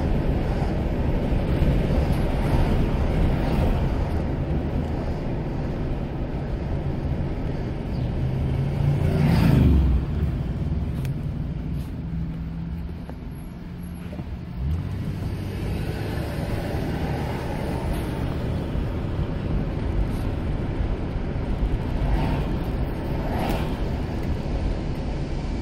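Steady road and engine noise of a car driving on a city street, heard from inside the car. There is a louder swell about nine seconds in, then the noise eases for a few seconds and picks up again about fifteen seconds in.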